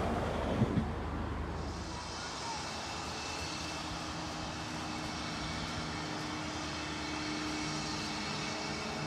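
A steady engine drone with a constant low hum and an even hiss, which grows brighter about two seconds in.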